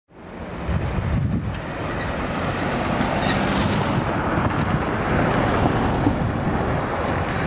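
Motor vehicle engines running and traffic passing, a steady noisy rumble that fades in at the start.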